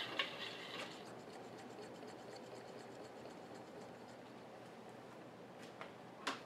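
Milling machine's running and cutting noise dies away about a second in, leaving a faint steady hum. Near the end come two clicks, the second sharper and louder.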